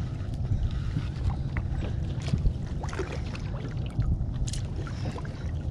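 Wind rumbling on the microphone, with scattered light knocks and clicks.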